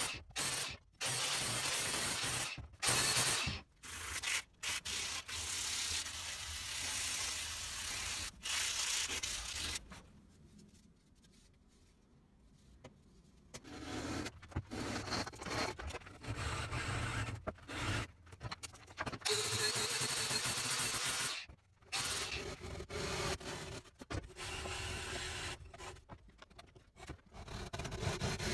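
Abrasive shaping of a fiberboard bow-riser template in short edited bursts: an angle grinder's sanding disc rubbing and scraping along the clamped edge. After a quieter stretch about ten seconds in, it goes on with hand-saw strokes scraping through the board.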